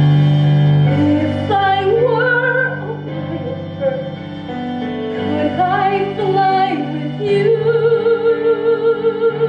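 A woman singing a slow melody over sustained instrumental accompaniment, ending in a long held note with vibrato that starts about three-quarters of the way in.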